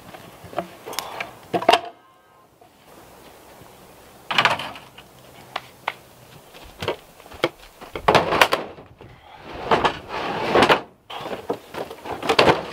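Plastic gear boxes and a cooler being carried and loaded into a pickup bed: a string of knocks, bumps and short scraping rushes as they are handled and set down.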